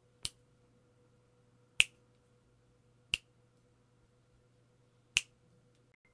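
Four sharp, single clicks at uneven intervals, about a second and a half to two seconds apart, over a faint steady electrical hum.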